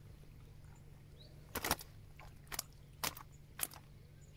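A mirror carp being handled in a wet landing net: four short, sharp slaps and knocks from the fish and net about half a second apart, the first of them doubled, over a faint steady rumble.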